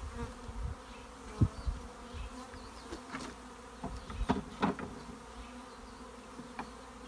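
A mass of honeybees buzzing steadily around a top bar hive as a package colony is installed. A few short wooden knocks come as the top bars are set back in place, the loudest about a second and a half in and two more around four and a half seconds.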